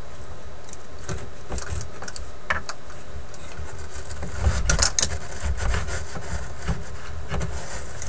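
Hands working the dampened paper lining of a wooden record-player cabinet: small clicks and scratchy rubbing, with a burst of rustling about four and a half seconds in, over a steady low hum.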